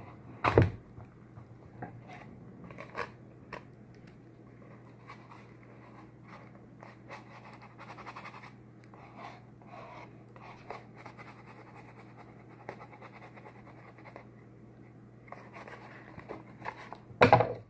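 Small handling noises: light scraping, rustling and scattered clicks, with a sharp knock about half a second in and another near the end, over a low steady hum.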